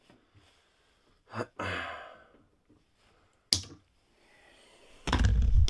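A man lets out a long sigh, and a single sharp click follows a little later. Near the end comes a loud low rumbling with knocks as the camera is picked up and moved.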